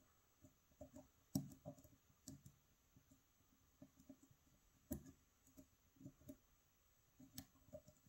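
Faint, irregular small clicks from a hook pick working the pins of a cylinder challenge lock under tension, the sharpest about one, five and seven seconds in. Pins with threading and countermilling click many times as they are lifted, and so many clicks are what the picker takes as the sign of threaded pins.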